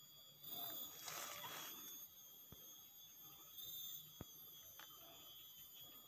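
Near silence: a faint, steady high-pitched whine of several thin tones, with a soft rustle about a second in and two faint clicks a little over a second and a half apart.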